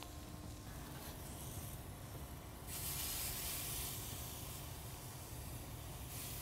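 Steady hiss of a hot gas grill, with whole barramundi cooking on a cedar plank over the burners. The hiss grows louder and brighter about two and a half seconds in.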